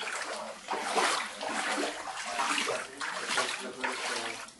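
Wading steps splashing through floodwater, a surge of sloshing about once a second.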